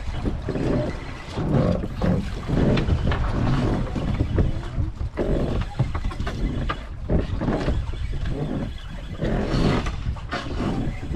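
Wind buffeting the microphone on an open boat at sea: a loud, uneven rumble that swells and drops.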